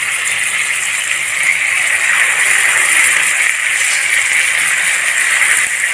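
Tandoori-marinated chicken drumstick sizzling as it fries in hot oil and butter: a steady hiss.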